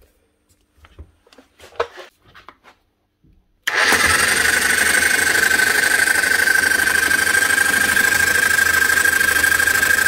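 A Bosch GSH 27 electric demolition breaker hammer switched on a few seconds in, its motor running with a steady high whine. The tool is jumping but not hammering, a fault the repairer puts down to dried-up grease no longer sealing the piston.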